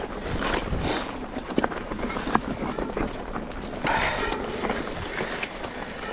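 Mountain bike riding over rough ground: steady wind and rolling noise, with many scattered knocks and rattles.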